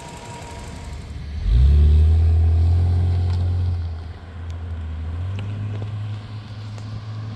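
Nissan RB30E straight-six engine of a Holden VL Commodore revving up sharply about a second and a half in as the car gets under way. It is loudest for about two seconds, then settles to a quieter, steady running note that rises slightly in pitch a little later.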